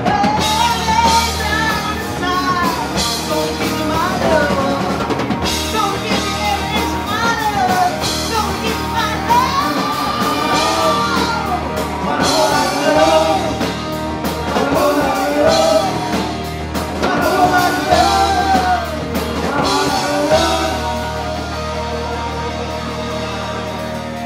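Live rock band playing loud with drums, electric guitar and bass, a woman singing lead over it through the PA. The singing drops out a few seconds before the end while the band plays on.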